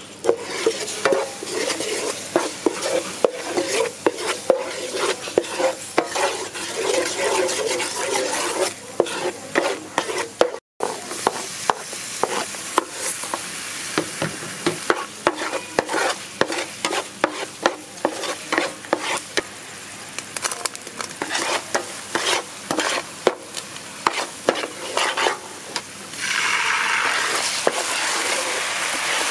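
Sauce with chopped garlic bubbling and sizzling in a nonstick frying pan while a wooden spatula stirs and scrapes through it, with constant crackling and frequent sharp ticks. About 26 seconds in, the sizzle turns louder and steadier.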